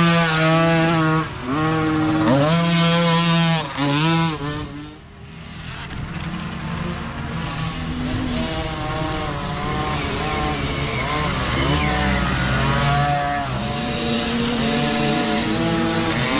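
Small dirt bike engine revving hard close by, its pitch climbing and dropping again and again as the rider shifts, then fading quickly about five seconds in. After that, more small dirt bikes revving from farther off, growing louder toward the end as they come closer.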